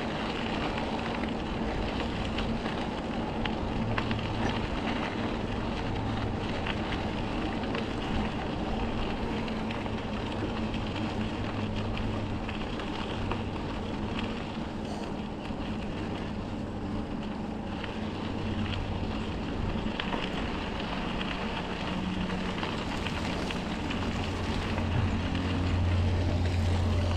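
Steady wind rush on the microphone and tyre noise from a bicycle rolling along a trail, growing a little louder near the end.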